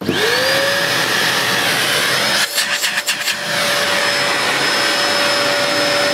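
Brand-new Princess Jet Vac floating bagless cylinder vacuum cleaner switched on for the first time: its motor spins up in a rising whine within about a second, then runs steadily. Around the middle the sound flutters and dips for about a second before settling again.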